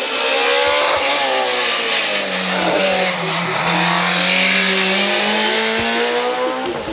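Race car engine passing at speed on a hillclimb course, loud throughout. Its note falls for the first few seconds as the car slows into the bend, then climbs again as it accelerates away.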